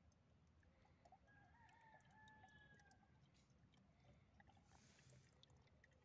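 Near silence with a faint low background hiss. About a second in comes one faint, distant animal call with a held, slightly falling pitch, lasting about two seconds.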